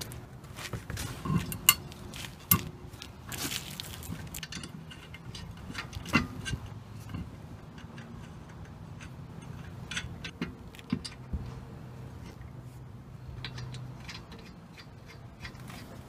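Metal clicks, clinks and knocks as a steel wheel is hung on the hub and its lug nuts are threaded onto the wheel studs by hand. The sharpest knocks come about two and six seconds in.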